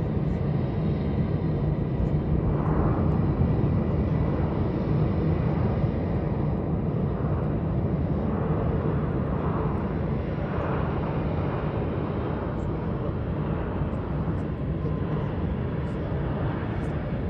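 Jet engines of an Airbus A320-family airliner giving a steady rumble as it rolls along the runway.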